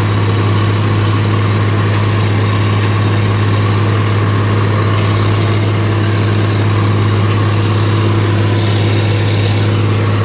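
White 2-85 tractor's diesel engine running at a steady speed, a constant low drone.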